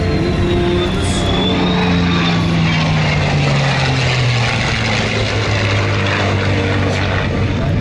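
A P-51 Mustang's propeller engine and an F-16's jet engine flying past together in formation, a steady drone of engine and propeller with jet noise. The engine's pitch falls over a few seconds as they go by.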